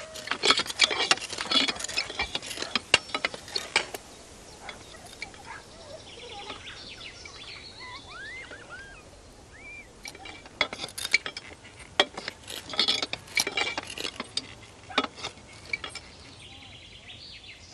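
Steel pole-climbing irons clinking and clanking against a concrete utility pole as a lineman climbs, in two spells of quick sharp metallic clicks. In the quieter stretch between them a bird chirps a few times.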